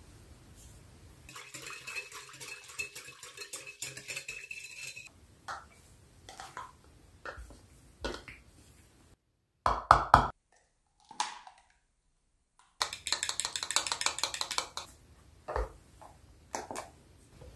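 A wire whisk stirring dry ingredients in a glass bowl, a rapid scraping with a faint ring, for about four seconds. Then scattered light taps of silicone cups being set down, a couple of loud sharp knocks, and a spoon beating egg in a silicone cup for about two seconds, ending in a few knocks as a cup is set on a kitchen scale.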